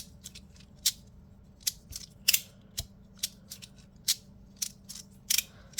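Tectonix Ultra, a 3D-printed plastic fidget toy, clicking in the hand: a string of irregular sharp clicks, a few a second.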